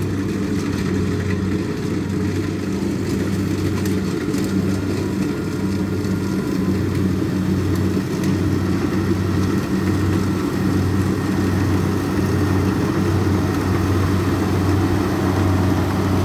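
Kubota DC60 combine harvester's four-cylinder V2403 diesel running steadily under load as it cuts and threshes rice: a steady low drone that swells and eases slightly.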